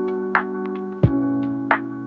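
Background music: sustained electric piano or synth chords changing about once a second, over a light percussive beat.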